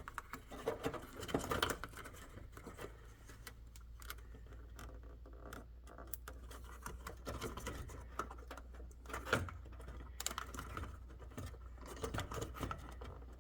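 Faint scratching and small plastic clicks of fingers working at a ribbon cable connector's latch on an electric range's control board, trying to release the cable.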